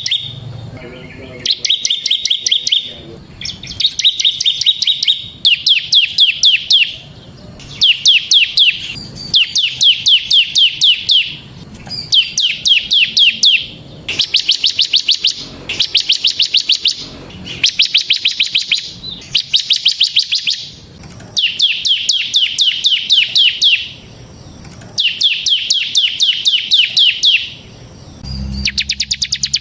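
Bar-winged prinia (ciblek) singing in fast, machine-gun-like ticking trills ('ngebren'), phrase after phrase of a couple of seconds each with short pauses between. A low hum comes in near the end.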